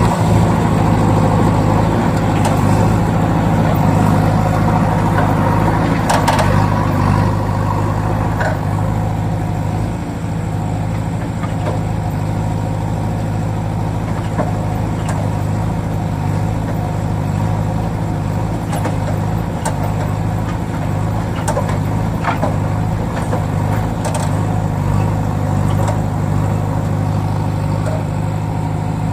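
A vehicle engine running steadily at a low, even pitch, with a few faint clicks now and then.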